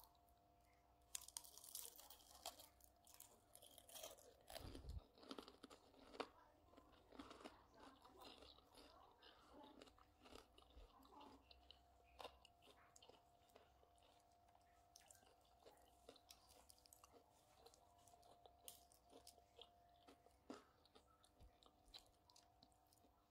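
Faint crunching and chewing of crispy fried onion rings being eaten, in irregular crunches that are thickest in the first half and thin out later.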